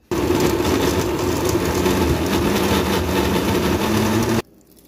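Electric countertop blender running, roughly crushing chopped peppers and onions in its glass jar. It switches on with a steady motor hum and cuts off abruptly after about four seconds.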